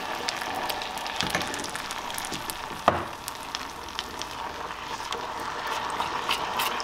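Coconut milk hitting a hot saucepan of melted ghee, dissolved sweetener and toasted pecans, sizzling with many small crackles while a silicone spatula stirs it. A single sharp knock about three seconds in.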